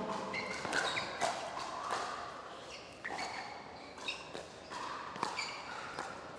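Pickleball rally: a string of sharp pops as paddles strike the hard plastic ball, one every half second to a second, with short high squeaks between the hits.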